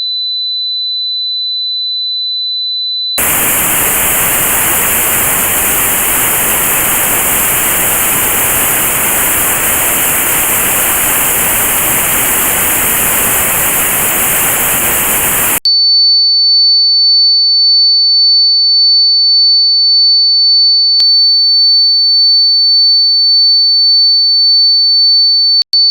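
A high, steady pure test tone for tinnitus pitch-matching. About three seconds in it gives way to notched white noise: a hiss with a band cut out around the tone's pitch, as used in notched sound therapy for tinnitus. About twelve seconds later that cuts off, and a slightly higher steady tone follows.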